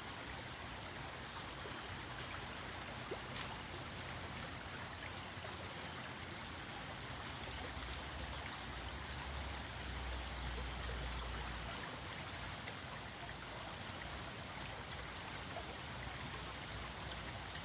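Steady, even rushing noise of outdoor ambience, with a low rumble that swells for a few seconds in the middle.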